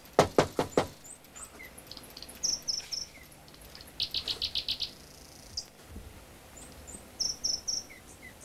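A quick run of about five knocks on a glass door, followed by scattered high chirps and a short rapid trill of night birds or insects.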